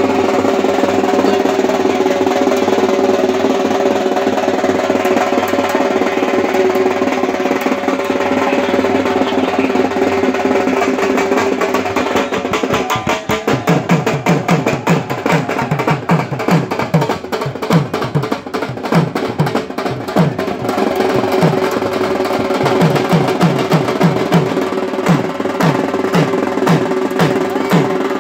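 Loud music with drumming: a steady droning tone and rapid percussion, with a regular low drumbeat of about two to three strokes a second coming in about halfway through.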